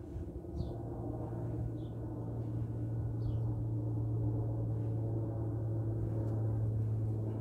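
A steady low hum with overtones that grows louder over the first few seconds and then holds, with a few short high chirps about a second apart in the first half.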